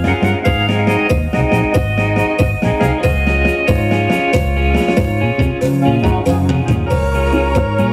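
Chilena mixteca dance music: a band track with strong bass and a steady, even beat.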